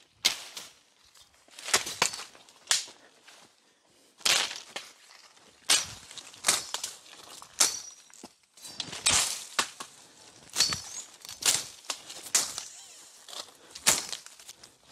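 Footsteps crunching through dry leaves and twigs in brush, irregular steps about one to two a second.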